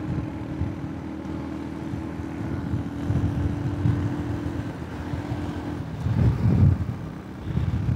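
Engine of a moving road vehicle running steadily, with road rumble and wind on the microphone; a loud gust of wind buffeting comes about six seconds in.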